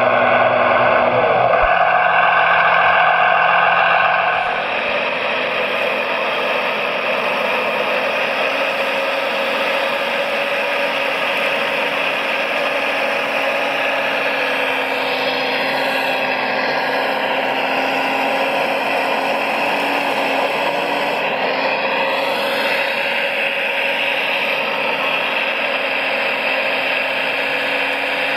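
Electric motors and gearing of radio-controlled construction machines whirring steadily, dropping slightly in level about four seconds in, with brief changes in pitch as the motors speed up and slow down.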